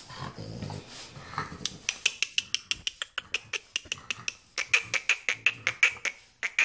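Dog claws clicking rapidly on a ceramic tile floor as French bulldog puppies scamper about, starting about two seconds in, at roughly six clicks a second.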